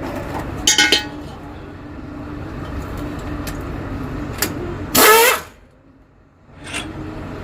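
A tool runs steadily, turning out the bolts of a bus differential's bearing cap. It stops about five seconds in, just after a short, sharp, loud sound, and starts again about a second later.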